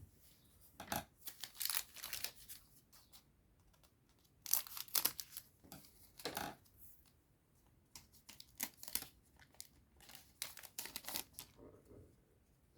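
A foil trading-card booster pack being torn open and crinkled, in three bursts of ripping and rustling with short pauses between.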